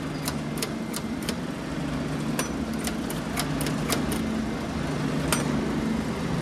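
Metal crank of a coin-operated bouncy-ball vending machine being turned, giving a series of sharp, irregular clicks, over a steady low hum.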